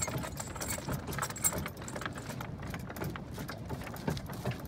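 A horse-drawn cart rolling along a dirt track behind a draft horse, its harness chains and cart jingling and rattling in a steady run of small irregular clicks over a low rumble.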